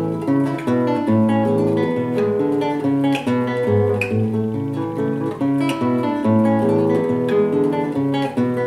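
Solo nylon-string classical guitar, fingerpicked: a steady run of plucked notes over a recurring bass line, playing variations on a gato, the Argentine folk dance.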